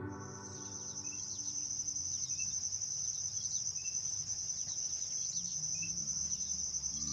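Insects, likely crickets, trilling in one steady high-pitched note, with a short faint chirp repeating about every one and a half seconds.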